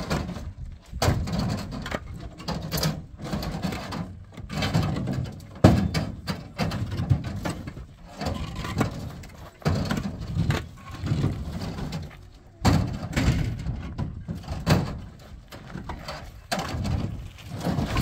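Hollow concrete blocks being unloaded and stacked: repeated knocks and scrapes of block against block, with the sharpest knock about five and a half seconds in.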